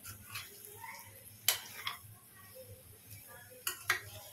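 Steel spoon clinking and scraping against a non-stick kadhai while stirring spiced taro root and potato pieces. A few sharp clinks, the loudest about a second and a half in and two close together near the end, with soft scraping between them.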